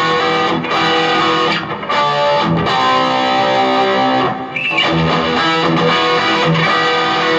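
Two electric guitars played together through amplifiers, one of them a small 15-watt Marshall MG15 combo, with notes and strummed chords ringing on.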